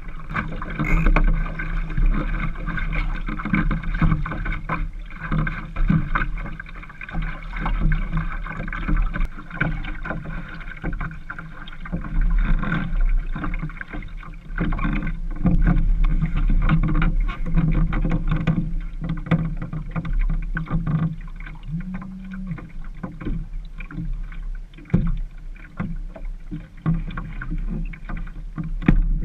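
Naples Sabot sailing dinghy under way in light wind: a steady wash of water and wind around the small hull, with frequent small knocks and clatters from the boat and its gear.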